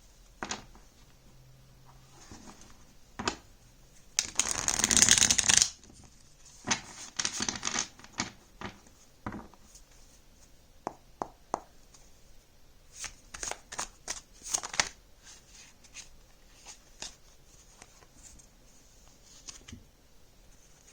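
A deck of oracle cards being shuffled and handled. There is one loud shuffle about four seconds in, lasting about a second and a half, then scattered light taps and clicks of cards.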